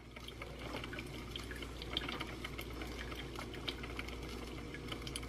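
Mr. Coffee drip coffee maker brewing into its glass carafe: coffee dripping and trickling in, a steady hiss with many small ticks and pops.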